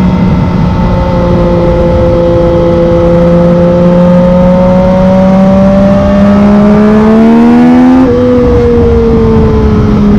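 Yamaha MT-09's inline three-cylinder engine through a Black Widow carbon full exhaust, pulling under throttle with its pitch climbing slowly and then faster, before it drops abruptly about eight seconds in and sinks away after that.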